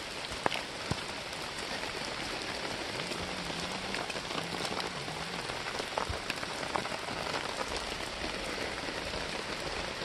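Steady rain falling, an even hiss with a few sharper single drops striking a surface.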